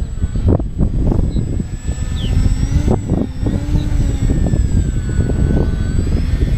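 Heavy wind rumble on the microphone, with the thin whine of a VisionAire RC model airplane's electric motor above it, gliding up and down in pitch as the plane flies.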